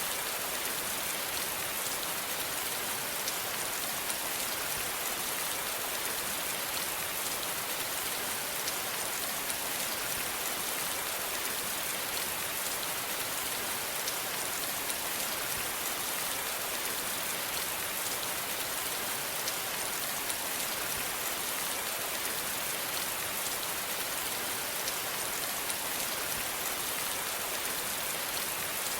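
Steady rain falling, an even hiss of many drops with scattered individual drop ticks on a surface.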